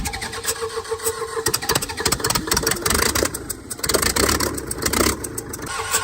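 Freshly restored engine running with an even, rapid ticking. It grows louder and rougher for about two seconds past the middle, then settles back to a steady run.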